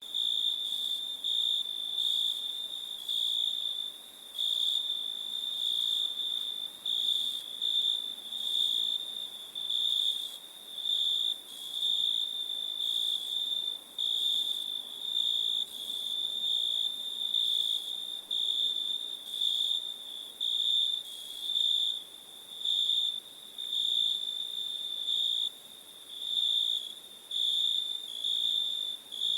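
Crickets chirping in a steady high trill that swells and fades about once a second.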